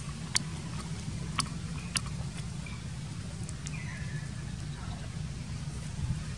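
A steady low hum, with three sharp clicks in the first two seconds and a short falling chirp about four seconds in.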